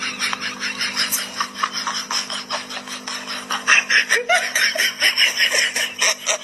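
People laughing in quick, choppy bursts, with a steady low hum underneath.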